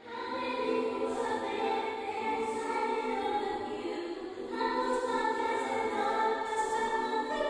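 Choral intro music: voices holding long chords that change every second or two.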